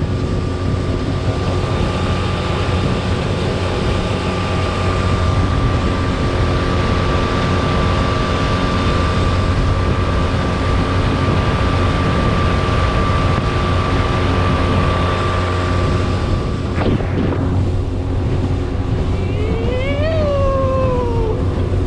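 Skiff's outboard motor running under way, with heavy wind noise on the microphone and a steady whine. About sixteen seconds in the whine drops away; near the end a single pitched call rises and falls.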